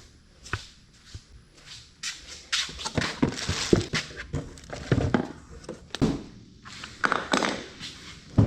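Tools and mower parts being handled: irregular knocks, clicks and short rattling scrapes, with the busiest clatter about three to four seconds in.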